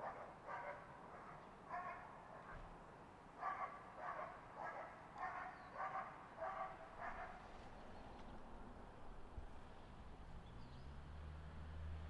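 Dog barking repeatedly, a string of short barks about two a second that stops about seven seconds in. A low steady hum sets in near the end.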